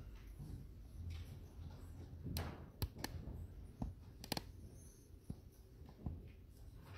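Quiet room tone with a low hum, broken by several small scattered clicks and knocks.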